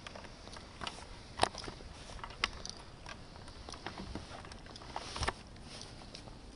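Irregular sharp taps and clicks over a low outdoor background, like scattered footsteps on cobblestones, the loudest about one and a half, two and a half and five seconds in.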